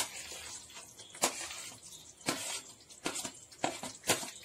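Metal spoon scraping and knocking against a plate and the rim of a steel pot as chopped capsicum and onion are pushed into thick curry gravy, with a series of sharp clinks roughly one a second.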